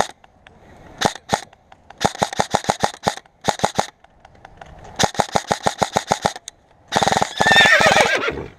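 Airsoft guns firing: a couple of single shots, then quick rapid-fire strings of sharp clicks, and a longer, denser burst near the end.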